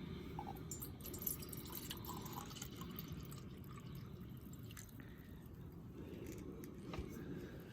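Water dripping in scattered, irregular drops over a steady low rumble.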